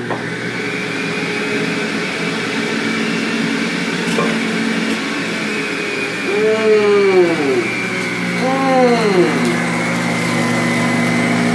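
Electric centrifugal juicer running, a steady motor hum with a high whine. Twice, around the middle, its pitch swings and settles as quartered onions are pushed down the feed chute and shredded.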